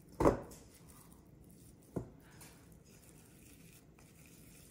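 Raw meatball mixture handled by hand against a stainless steel bowl and metal baking tray. There is a loud dull thump just after the start and a smaller knock about two seconds in.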